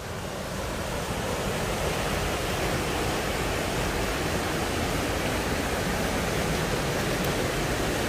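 Mountain stream rushing over rocks and a small waterfall pouring into a pool. The steady rush of water swells over the first couple of seconds and then holds even.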